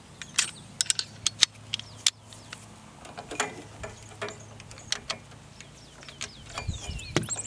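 Irregular metallic clicks and ticks of a hand tool (screwdriver or nut driver) being fitted to and turned on a small terminal nut of the Ford CL340 skid steer's starter solenoid.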